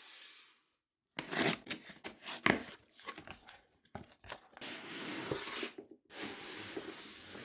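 Mousepad packaging being torn open and handled. First comes a run of sharp crackling tears, then two longer, smoother rubbing sweeps.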